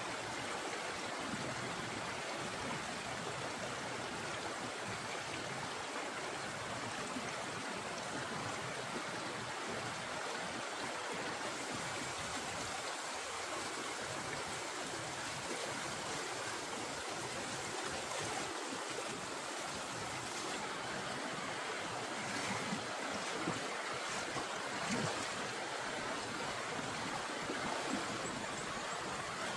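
Shallow stream running over rocks: a steady rush of flowing water, with a few short splashes in the last part as hands grope in the water along the bank.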